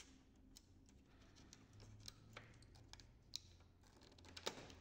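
Faint, scattered light clicks and scrapes of fingers pulling flat ribbon cables out of their connectors on a laser printer's main circuit board, with a slightly louder click near the end.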